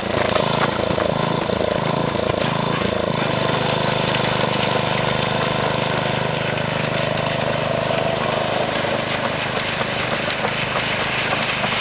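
Small engine of a walk-behind two-wheel tractor running, driving a rotary brush that sweeps the ice. Its hum is uneven for the first three seconds or so, then steady.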